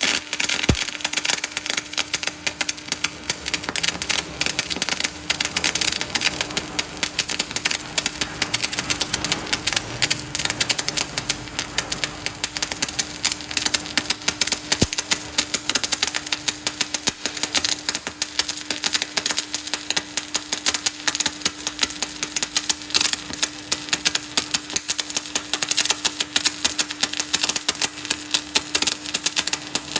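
Electric arc welding: a dense, continuous crackle from the arc, with a steady hum beneath it.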